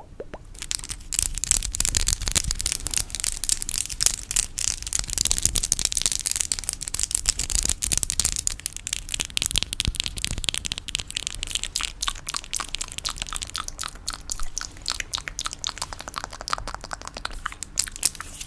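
Fingernails tapping and scratching very rapidly, making a dense crackle of tiny clicks like pattering rain. It is fullest in the first half and thins a little later on.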